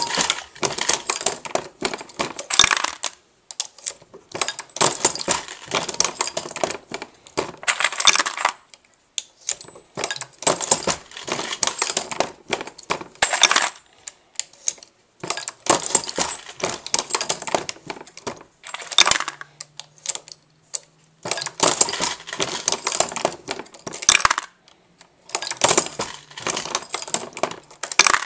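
Dillon RL550B progressive reloading press being cycled while loading .40 S&W, with clusters of metallic clicks and clinks from brass cases, bullets and the press's moving parts. The clusters are a few seconds long with short pauses between them, about six in all.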